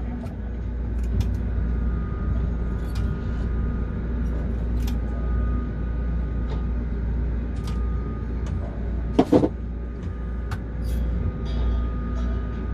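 Steady low rumble and electrical hum inside a tower crane's operator cab, with scattered light clicks and a short loud burst about nine seconds in.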